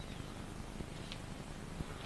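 Faint clicks and light scraping of a thin wire being bent and laid out by hand on a reed mat, over a steady hiss.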